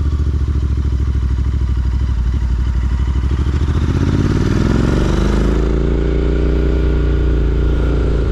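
Royal Enfield Interceptor 650's parallel-twin engine running with an even, pulsing beat. About three to five seconds in the revs rise, and the engine then holds a steady, higher note.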